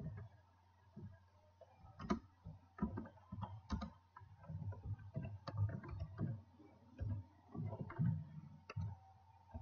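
Typing on a computer keyboard: irregular key clicks with soft thuds, coming in quick runs broken by short pauses.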